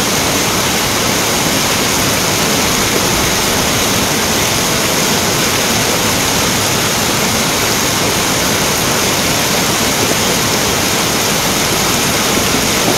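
Floodwater rushing down a street as a fast torrent, mixed with heavy rain falling: a loud, steady rush of water with no breaks.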